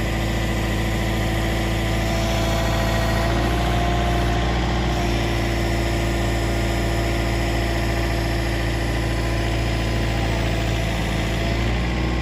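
Excavator engine running steadily while the arm and bucket are worked, with a faint whine that rises briefly about three seconds in.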